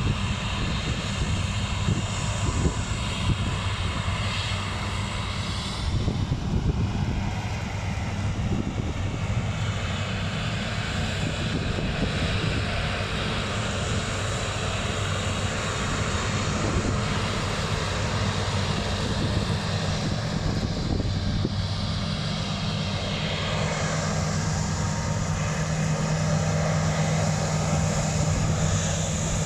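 Diesel engines of heavy harvest machinery running steadily under load, a continuous deep hum with a constant low drone. The hum's pitch gets stronger for the last few seconds.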